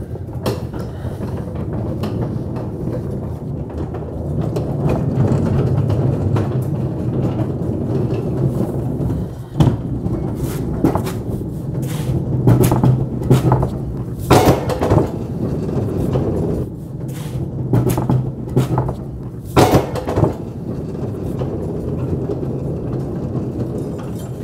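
Low, steady mechanical rumble from stone-working machinery, with scattered sharp knocks and clanks of stone and metal, most of them in the middle of the stretch and a pair near the end.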